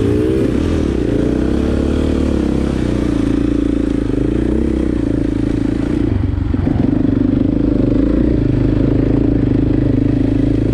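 Husqvarna FX 450's four-stroke single-cylinder dirt-bike engine revving as it pulls away, then running under changing throttle up the trail, its pitch steadier from about six seconds in.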